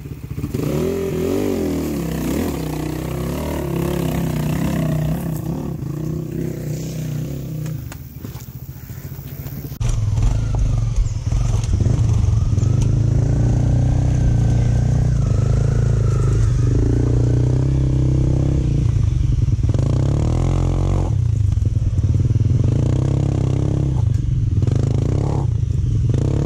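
Single-cylinder dirt bike engine running on an off-road ride, its pitch rising and falling with the throttle. About ten seconds in the sound abruptly turns louder and heavier.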